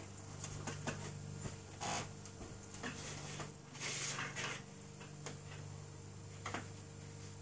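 Steady low hum with scattered light clicks and two short rustling noises, about two seconds in and about four seconds in.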